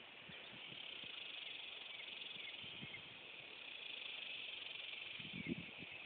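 Faint, steady high-pitched buzzing of insects outdoors, with one brief soft low sound about five and a half seconds in.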